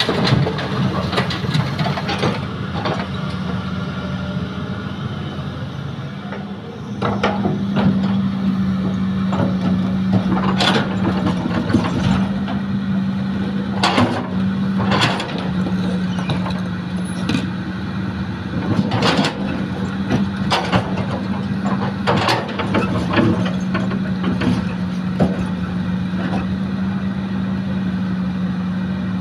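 Diesel engine of heavy earthmoving machinery running steadily, getting louder about seven seconds in, with repeated sharp clanks and knocks of metal and dumped soil.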